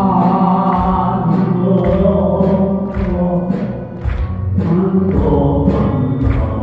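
Live song performance: sung voice holding long wavering notes over band accompaniment with a steady beat, the singing pausing briefly in the middle.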